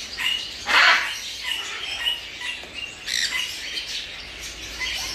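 Parrots squawking: a loud, harsh screech about a second in and another just after three seconds, with short high chirps between them.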